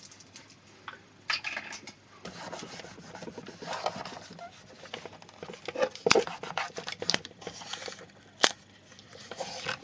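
Hands rubbing and pressing adhesive tape down on a small speaker box, with scraping and rustling, then a few sharp knocks and clicks in the second half as the box is picked up and tilted.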